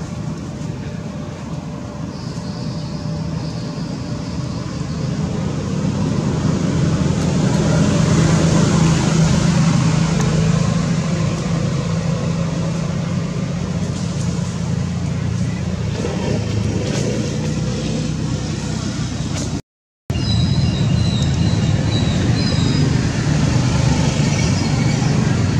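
Steady low rumble of a motor vehicle engine running, growing louder about six seconds in, with a few short high chirps near the end.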